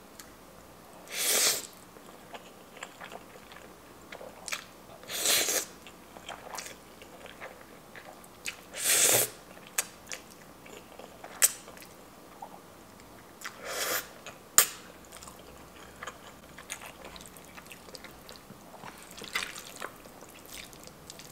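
Close-miked eating sounds as spaghetti is eaten: quiet wet chewing and mouth clicks, with a short louder wet burst about every four seconds.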